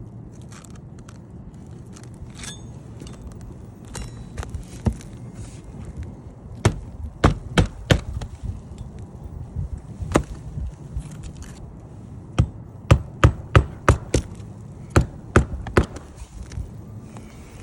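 Hammer striking during shingle roof repair work: about a dozen sharp knocks in irregular groups, with a quicker run of blows in the second half.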